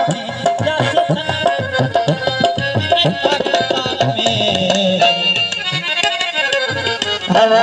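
Music with tabla drumming under a repeating melody of short notes.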